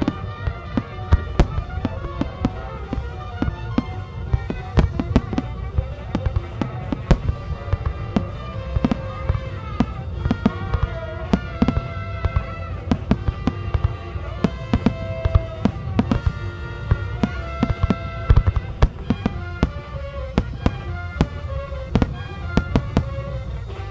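Aerial firework shells bursting in rapid, irregular succession: dozens of sharp bangs, some in quick clusters, over music playing throughout.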